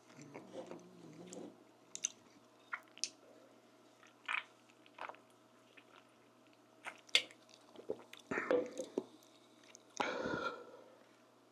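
Close-miked mouth sounds of a person eating: chewing with wet lip smacks and sharp clicks scattered through, and a longer, louder stretch of chewing about ten seconds in.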